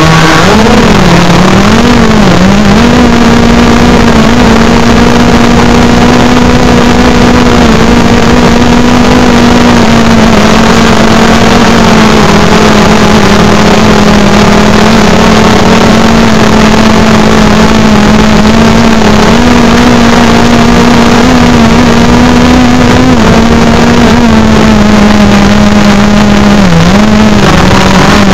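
DJI Phantom 3 Pro quadcopter's motors and propellers buzzing loudly in flight, heard from a recorder strapped to the drone's body with tape over its microphone. The pitch wobbles up and down in the first couple of seconds, holds steady, then dips and rises again near the end.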